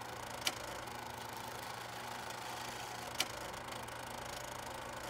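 Steady hiss and low hum of an old-film soundtrack effect, with two sharp pops: one about half a second in and another about three seconds in.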